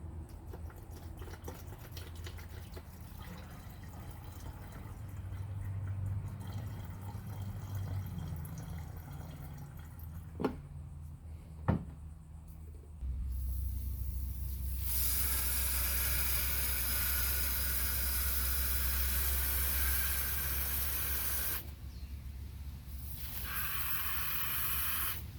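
Liquid being poured into a bottle to mix an alcohol-and-water wipe-down solution: two sharp clicks, then a steady pour of about eight seconds and a shorter second pour near the end.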